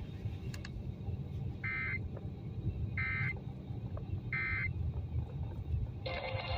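Three short bursts of Emergency Alert System SAME data over the radio, each about a third of a second long and spaced about 1.3 s apart. They are the End of Message code that closes the alert test. A steady low rumble runs underneath, and near the end the station's programme with music comes back.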